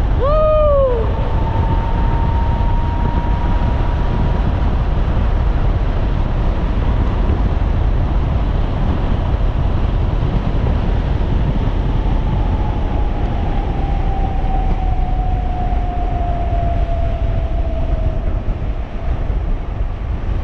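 Wind rushing on the microphone and road rumble from a 3,000-watt electric bike in motion, with a steady thin whine that slowly drops in pitch over the last eight seconds. A short pitched call that rises and then falls comes about half a second in.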